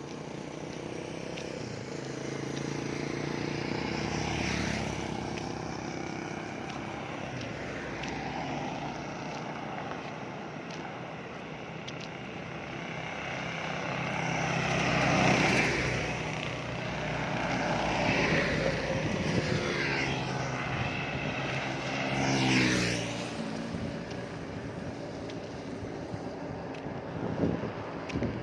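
Motor vehicles passing one after another on a road, each engine growing louder as it approaches and fading as it goes by, with a falling pitch as one passes about two-thirds of the way through.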